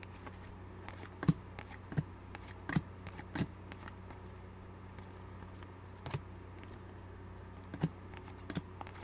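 Glossy trading cards being flipped through by hand, each card slid off the stack with a short, sharp flick, irregularly every second or so, over a steady low hum.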